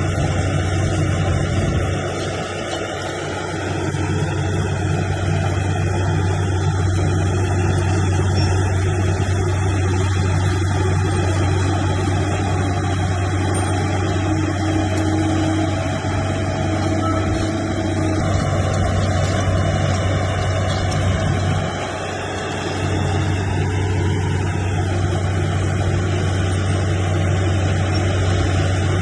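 Heavy diesel engine of earthmoving machinery running steadily with a deep drone, easing off briefly twice before picking up again.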